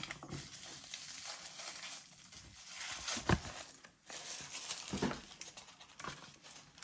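Crinkly wrapper of an LOL Surprise ball being unwrapped and handled, rustling in uneven bursts with the loudest crinkle about three seconds in.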